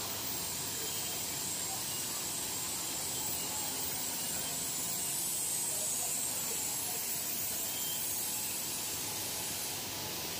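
Steady, even hiss of factory background noise beside a biscuit production line's machinery and conveyors, with no distinct rhythm or knocks.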